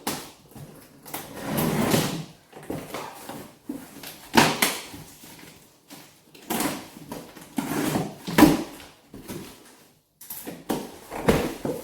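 A parcel being unboxed: packaging rustled and a box handled in a string of uneven rustles and knocks.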